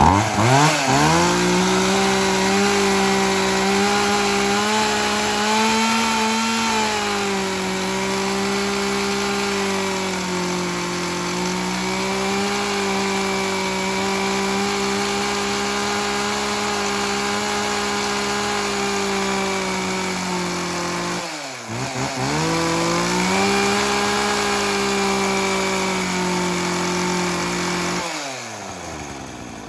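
Makita 36cc two-stroke chainsaw starting up and revving, then running steadily at speed. Its pitch dips briefly and recovers about two-thirds of the way through, then falls away with the level dropping near the end.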